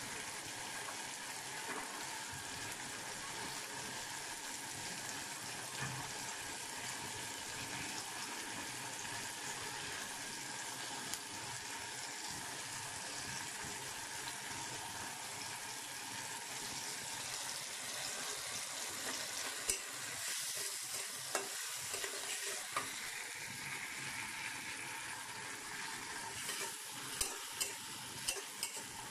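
Chickpeas frying in oil in a karahi, a steady sizzle. In the second half a metal spatula scrapes and clinks against the pan as the mixture is stirred, most often near the end.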